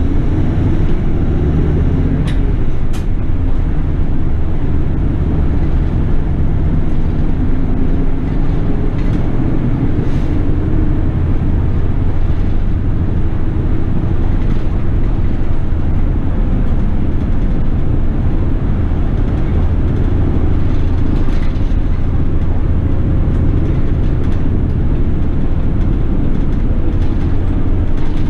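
City bus running in traffic, heard from inside the cabin: a steady low engine and road rumble with a whine that slowly rises and falls as the bus speeds up and slows. Two sharp clicks come about two and three seconds in.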